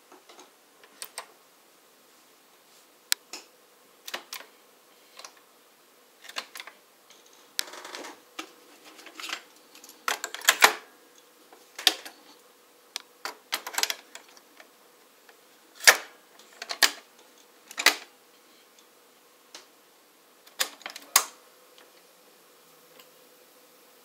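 Panasonic RC-CW200L boombox cassette decks being handled: a string of irregular sharp plastic clicks and clunks as the cassette doors are opened and snapped shut, tapes loaded and buttons pressed.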